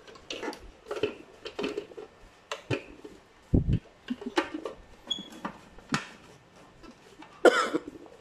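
Clear plastic bowl and lid of an Amway E-3288-J food processor being twisted and fitted on its base: a string of short plastic clicks, knocks and scrapes, with a dull thump about midway and a louder clatter near the end.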